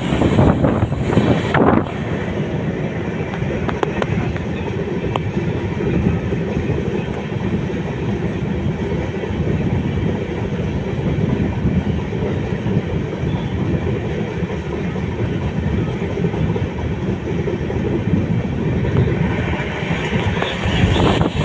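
A freight train passing close by on the adjacent track, heard from a moving train: steady rumble and wheel clatter of a long rake of flat wagons loaded with rails, just after its twin electric locomotives go by. The sound is rougher and louder for the first couple of seconds and again near the end.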